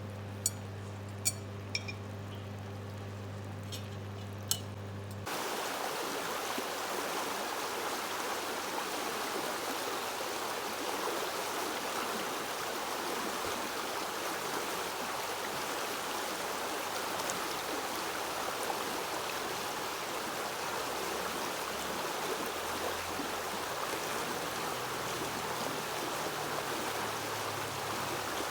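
River water running steadily, a dense even rush that starts abruptly about five seconds in. Before it comes a steady low hum with a few sharp clicks.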